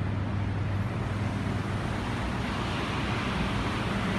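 Woods industrial exhaust fans with blades of about 20 inches, running steadily: a low hum under a broad rush of moving air. The rushing grows louder about halfway through.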